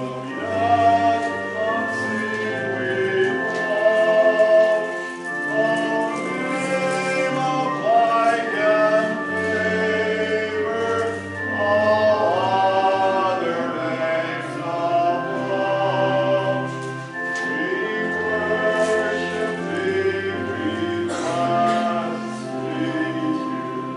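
Congregation singing a hymn with instrumental accompaniment, held low bass notes sounding beneath the voices.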